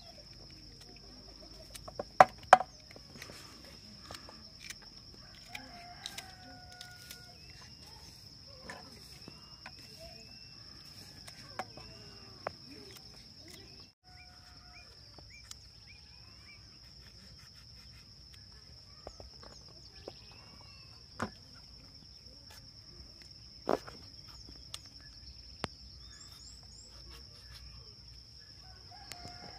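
Kitchen knife slicing okra pods by hand, giving sharp clicks now and then, loudest twice about two seconds in. Chickens call and cluck in the background, and a steady high-pitched whine runs underneath.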